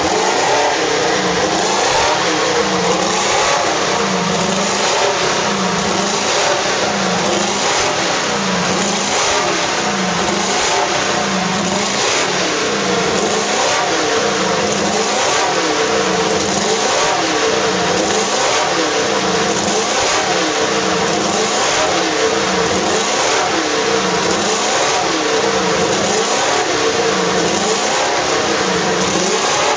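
Mercedes-Benz W196 Grand Prix car's 2.5-litre straight-eight engine running during warm-up, held at a steady fast idle. Its note rises and falls slightly about once a second.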